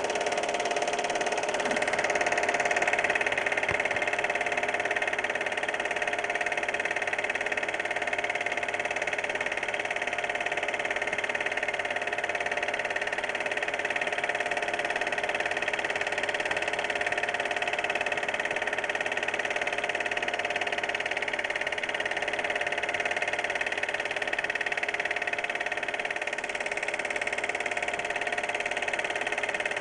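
Steady mechanical whirr and hum of a running cine film projector, unchanging throughout.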